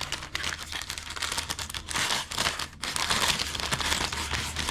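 Plastic sticker bag from a model kit crinkling and rustling as it is handled and opened.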